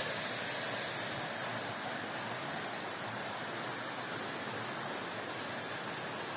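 Steady, unbroken rushing of water, an even hiss-like noise with no distinct events.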